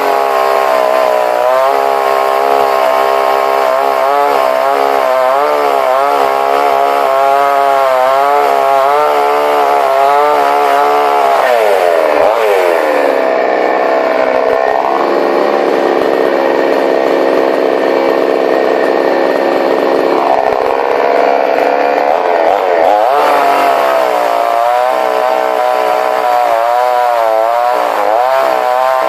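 Huter BS 52 two-stroke petrol chainsaw running at a low, wavering engine speed. About twelve seconds in, it revs up to a higher, steady pitch, holds it for about eight seconds, then drops back to the lower speed.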